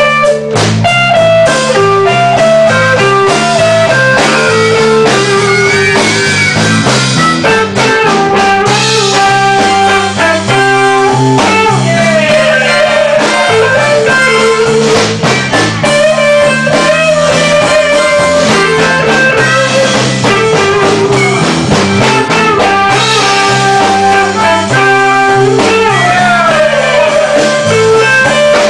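Live blues band playing an instrumental break in a slow blues ballad: a lead line of held, bent notes over guitar and a stepping bass line.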